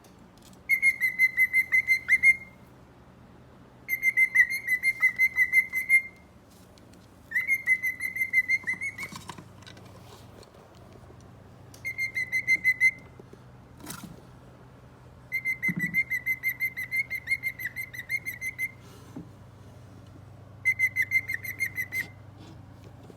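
Cockatiel singing: six phrases of rapid, repeated whistled notes on one steady pitch, each phrase one to three seconds long, with short pauses between them.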